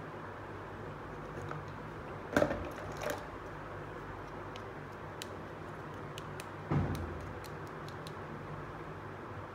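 Small plastic toy pieces knocking and clicking as they are handled: a sharp knock about two and a half seconds in, another just after, a heavier knock near seven seconds, with light ticks in between. A steady low hum lies under it all.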